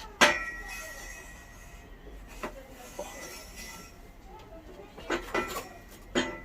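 Sharp metallic knocks on a steel tube, each followed by a short ringing tone. The loudest comes just after the start, with lighter ones in the middle and a quick cluster near the end.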